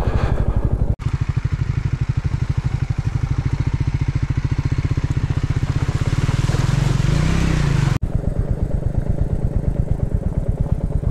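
Single-cylinder motorcycle engine chugging at low speed. In the middle section the bike fords a shallow stony stream: water splashes against the wheels and the engine revs up briefly near the end of the crossing. The sound breaks off abruptly twice.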